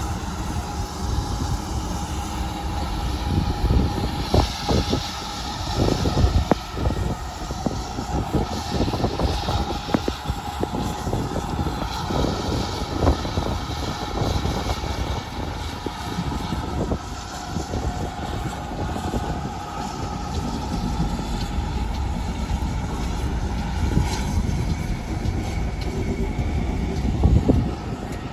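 GWR 5101-class large prairie tank engine 4144 working slowly away, its exhaust chuffing unevenly over a steady low rumble, with some hiss of steam.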